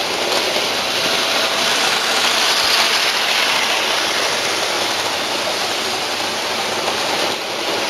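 Model train running on its track close to the microphone: a steady rushing rattle of wheels and motor that swells about three seconds in.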